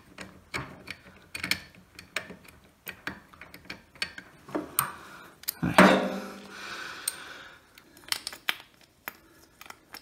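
Small metal clicks and taps as a bolt is turned out by hand and the idler pulley bracket is worked free inside a tumble dryer cabinet, with a louder knock and short ring about six seconds in.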